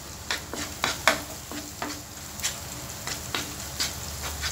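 An egg frying in hot oil with onions and chilies, sizzling steadily while a spatula stirs and breaks it up to scramble it, with light scrapes and taps against the pan about two to three times a second.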